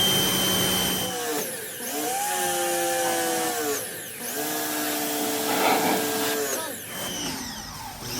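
Westinghouse 2300 PSI pressure washer running and spraying, its motor dropping in pitch twice under load, about a second in and again about four seconds in, and rising back each time, with the hiss of the water jet over it.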